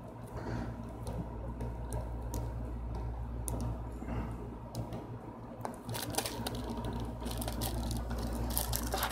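Plastic-wrapped card of a magnet set being handled: faint crinkles and small clicks, more of them in the second half, over a steady low hum.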